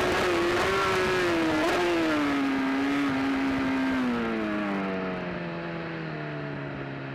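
BMW S1000RR inline-four engine heard from onboard, with wind rush, as the bike rolls off the throttle: the engine note falls steadily, dropping further about four seconds in, and the wind noise fades as the bike slows.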